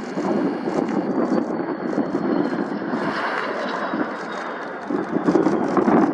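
Aircraft flying past with a loud, steady rumble and a faint high whine that slowly falls in pitch.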